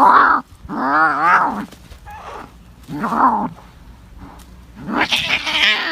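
Cats yowling at each other in a fight standoff: four drawn-out, wavering howls, the last one harsher.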